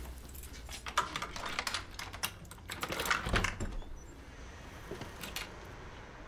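Keys rattling and a key clicking in the lock of a wooden door, many light clicks, with a dull knock a little over three seconds in and a few more clicks near five seconds.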